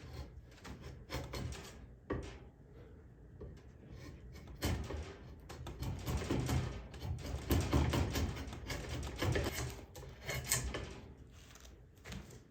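Hand tool shaving and scraping along a wooden axe handle in a series of uneven strokes. The strokes are light at first and heaviest in the middle stretch.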